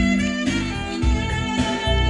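Recorded music played back through a homemade three-way wooden loudspeaker, driven by a tone-control and preamp board: sustained, held string-like notes over a steady bass line, picked up by the microphone in the room.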